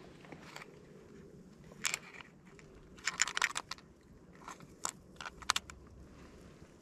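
Scattered small, sharp clicks and ticks of small objects being handled, bunched in a quick cluster about three seconds in.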